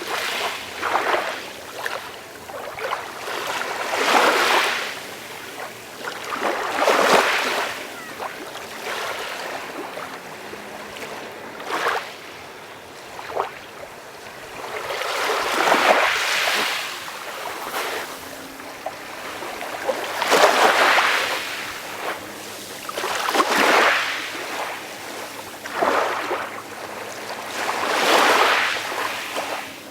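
Calm sea waves washing in, each small wave a soft rush of surf that swells and fades, coming irregularly every two to four seconds.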